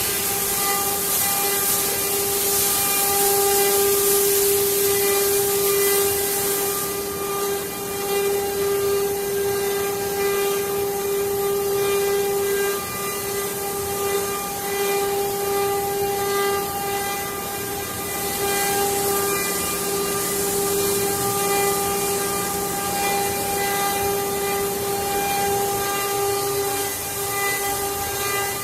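CNC wood-carving router spindle running at speed while routing wood: a steady high whine with overtones, under a hiss of cutting that eases off about seven seconds in and picks up again about eighteen seconds in.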